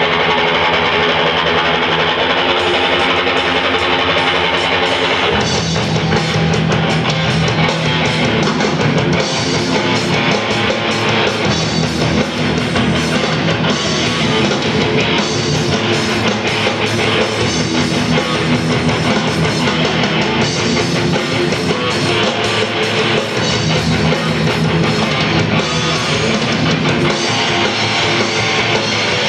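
Rock band playing live on stage: electric guitar and drum kit, recorded from the audience. The band grows fuller and heavier about five seconds in.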